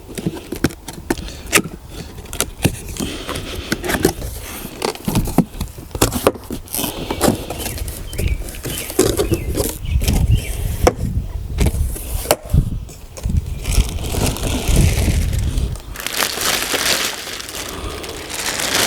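Irregular clicks, knocks and scraping as the plastic parts of a new battery string trimmer are handled, with some rustling.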